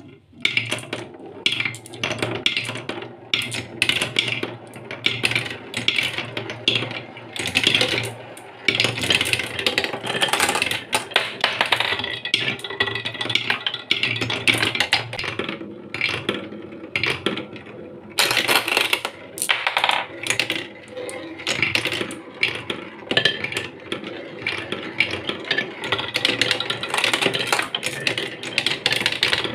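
Glass marbles rolling on a wooden marble run, spinning around a carved wooden funnel bowl and through a plywood spiral track, with a continuous rolling rattle and many clicks and knocks as they strike the wood and each other and drop through the holes.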